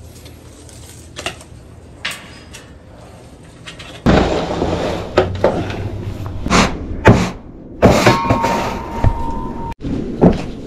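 Hands handling objects over a patio-tile floor: quiet with a few faint clicks at first, then, from about four seconds in, rustling and several sharp knocks and clacks, with a steady tone lasting over a second near the end.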